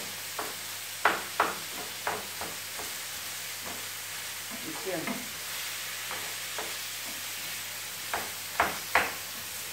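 Chopped vegetables sizzling in a metal frying pan while being stirred with a wooden spoon, with a steady frying hiss. The spoon knocks and scrapes against the pan several times, a few sharp knocks about a second in and again near the end.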